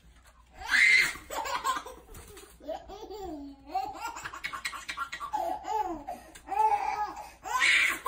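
Baby laughing and squealing in repeated bursts, loudest about a second in and again near the end.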